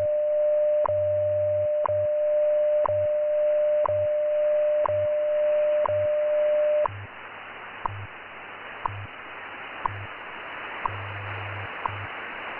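WWV time-signal broadcast heard on 20 MHz shortwave: the steady 600 Hz minute-1 tone with a short tick every second. The tone cuts off about seven seconds in, leaving the once-a-second ticks over shortwave hiss and the low pulsing hum of the 100 Hz time code.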